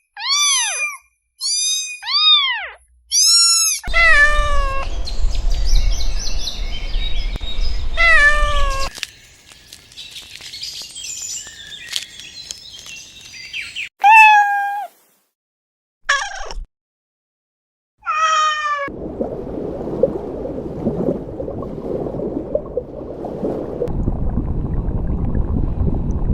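Domestic cat meowing, a run of short, arching meows one after another, then a few more spaced apart. Near the end the calls stop and a steady noise takes over.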